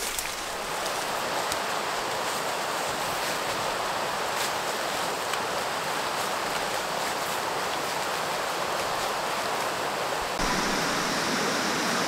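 Steady rushing of a creek flowing over rocks, becoming louder and fuller about ten seconds in.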